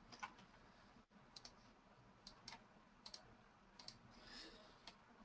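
Faint, irregular computer mouse clicks, single and in quick pairs, over near silence.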